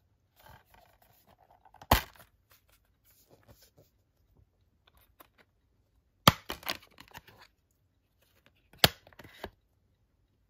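Handling of a metal steelbook case and its clear plastic disc tray: three sharp clicks, about two seconds in, a little after six seconds and near nine seconds, between faint scrapes and rustles, as the case is opened and a disc is pressed off the tray's centre hub.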